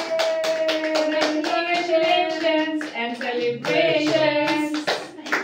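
A small group singing together while clapping their hands along to a steady beat.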